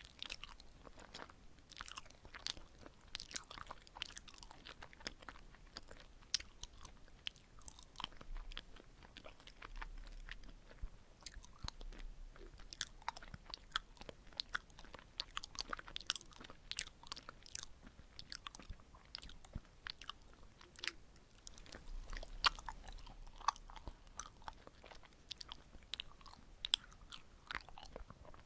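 Close-miked chewing of glutinous rice cakes filled with sweet red bean paste: soft, sticky mouth sounds dotted with many sharp, wet clicks and smacks.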